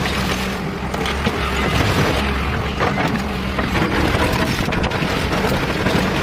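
Hyundai 210 Smart Plus excavator's diesel engine running steadily, a constant low hum under a rushing noise.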